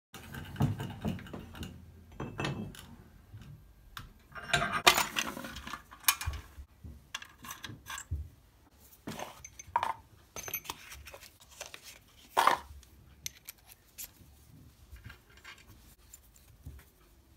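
Clinks and rattles of steel hand tools being handled on a metal workbench: taps and drill bits knocking in their holder as one is picked out, and a tap being fitted into a tap wrench. The knocks come irregularly, with a busy patch of rattling a few seconds in and one sharp clink about halfway through.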